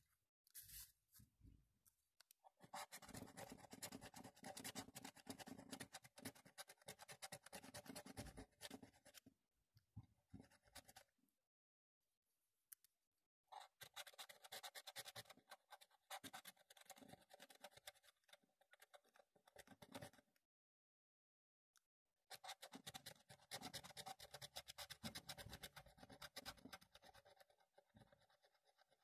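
Scratch card being scratched off: faint, rapid scraping strokes across the card's coating, in three bouts broken by short pauses.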